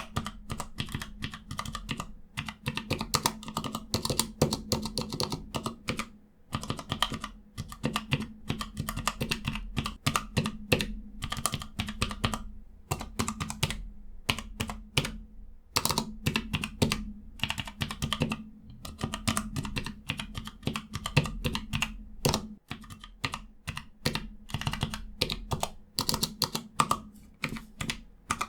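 Keys on a Cherry G84-4700 mechanical numpad with Cherry ML switches being typed on: quick runs of key clicks, broken by a few short pauses.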